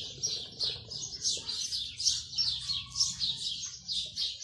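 Small birds chirping busily, a rapid run of short high chirps, several a second, over a faint low hum.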